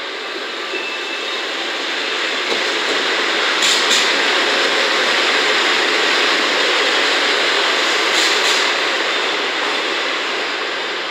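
DD51 diesel-hydraulic locomotive running light past on a station track, growing louder as it comes alongside and fading as it pulls away. Two brief pairs of wheel clacks sound about four and eight seconds in.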